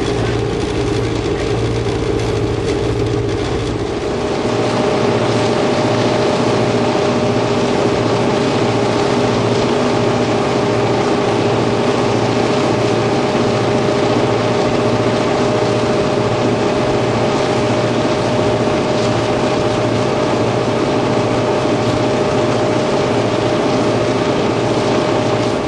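T-class diesel-electric locomotives running steadily, with an even engine drone. About four seconds in, the sound switches from the cab interior to the open side walkway. It becomes louder and hissier there, with a steady tone running through it.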